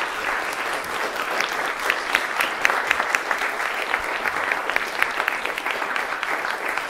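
Small audience applauding steadily, a dense patter of hand claps with a few sharp individual claps standing out.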